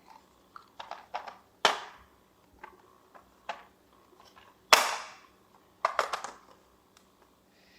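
Small plastic toy pieces being handled, clicking and knocking against each other in a string of separate sharp clacks. The loudest knock is about five seconds in.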